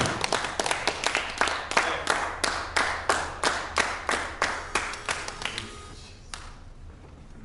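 Small audience applauding, with one clapper close by giving loud, distinct claps about three a second; the applause dies away about six seconds in.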